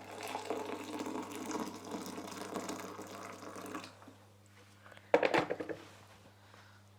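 Just-boiled water poured from a pan into a cup, a steady splashing pour that stops after about four seconds. A short sharp sound about five seconds in.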